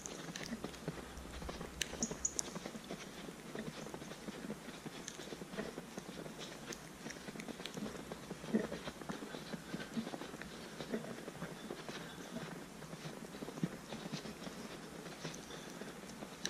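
Footsteps crunching in fresh snow at a steady walking pace, one step after another.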